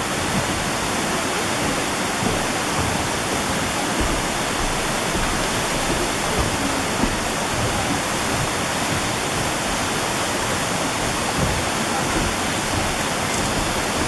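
Waterfall, partly frozen over with ice, with water pouring down it in a steady, even rush.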